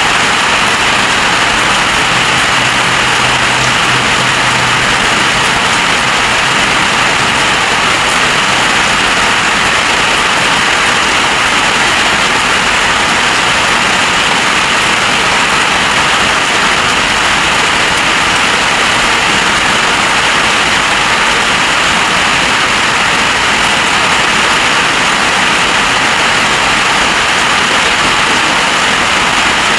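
Heavy storm rain, a loud, steady, even rush with no let-up. A faint low hum runs underneath during the first several seconds.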